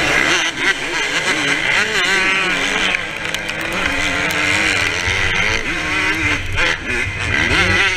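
Motocross dirt bike engine heard from on the bike, revving hard and shifting, its pitch climbing and dropping repeatedly through the corners and straights.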